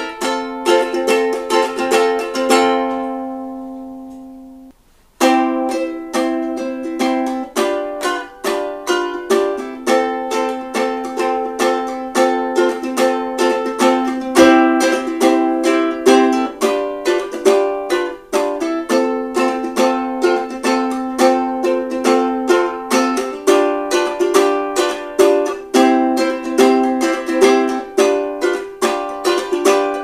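SQOE SQ-UK-24L concert ukulele, with a laminated spruce top and sapele body, strummed in chords. Near the start a chord is left to ring and fade, there is a brief pause, and then a steady rhythmic strumming pattern resumes.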